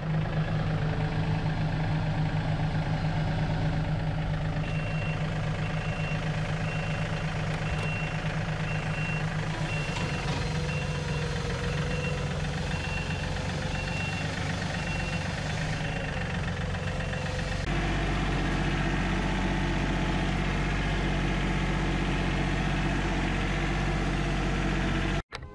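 John Deere compact tractor's diesel engine running steadily, heard from the operator's seat. A backup alarm beeps steadily for about ten seconds starting a few seconds in, and the engine note shifts lower and heavier about two-thirds of the way through.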